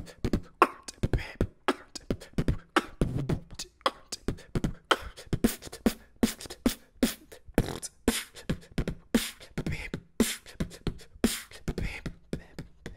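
Beatboxing: a fast, uneven run of mouth-made kick, snare and hi-hat sounds.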